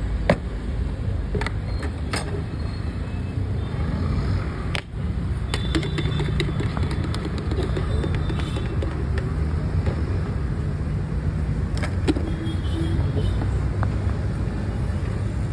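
Steady low rumble of street traffic, with a few sharp clicks and taps.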